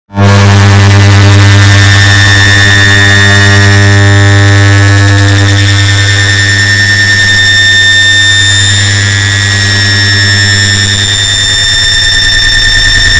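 Loud, distorted drone built from an air conditioner's start-up sound layered over itself many times: a deep steady hum under a stack of steady higher tones and hiss. It starts abruptly after a moment of silence.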